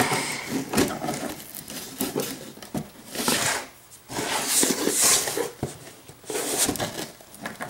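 Cardboard shipping box being handled while its packing tape is pulled and torn: irregular bursts of ripping and scraping, with a few knocks of the box on the table.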